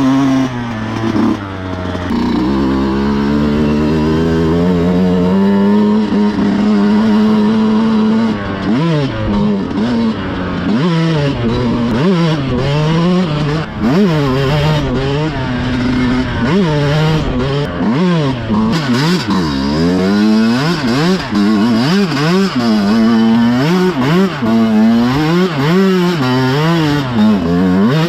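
Yamaha YZ125X's 125cc single-cylinder two-stroke engine running hard, its pitch climbing slowly for the first few seconds, then revving up and down about once a second for the rest.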